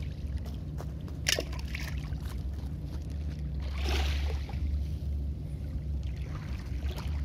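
Small wavelets lapping at the edge of a pebble beach, with one fuller wash about four seconds in, over a steady low hum.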